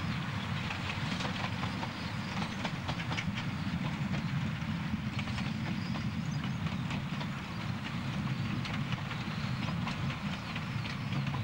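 Narrow-gauge steam train running past: a steady low rumble with many irregular clicks and clatter.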